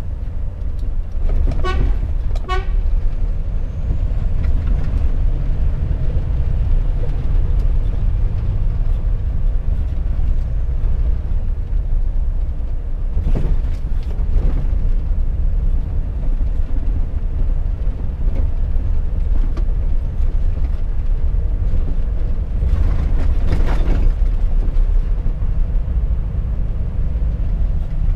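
Volvo FH 460 truck's 13-litre six-cylinder diesel running steadily on the road, a constant low drone. About two seconds in come two short high beeps. There are brief hisses around the middle and near the end.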